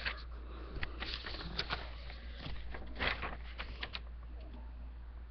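Handling noise from a phone or webcam being moved: rustling, scraping and sharp clicks for about four seconds, then it quietens, over a low steady hum.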